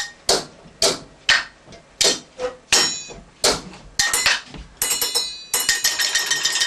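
Sharp knocks struck on objects, roughly one or two a second, each dying away quickly. From about five and a half seconds in they give way to a fast, continuous rattle with a steady ringing tone through it.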